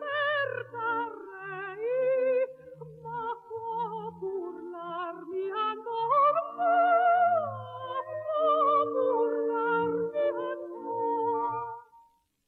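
Music: a high melody with wide vibrato and slides between notes, over short low accompanying notes. It dies away near the end.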